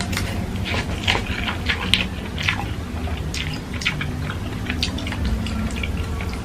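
Close-up eating sounds: a person slurping and chewing instant noodles, with many short, irregular wet clicks and smacks.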